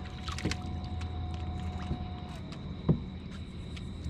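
Light clicks and taps of gear being handled in a boat, with one louder knock about three seconds in, over a faint steady high-pitched whine.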